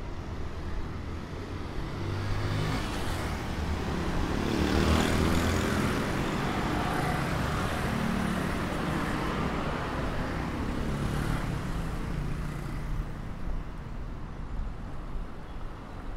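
Road traffic: cars passing close by, with a steady engine and tyre rumble. The loudest pass swells and fades about five seconds in, and another comes around eleven seconds.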